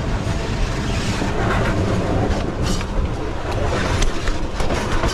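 Railway freight wagons rolling past at close range: a steady rumble of steel wheels on the rails, broken by irregular sharp clacks and knocks.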